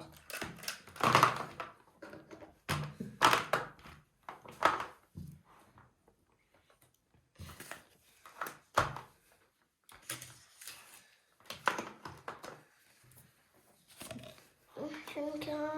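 Toy figures and accessories being put into a toy carry case: irregular knocks and clatters with rustling in between, and short pauses.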